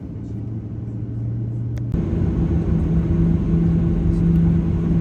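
Steady low rumble and hum of a Boeing 737 airliner on the ground. About two seconds in, the hum shifts to a higher pitch and gets louder.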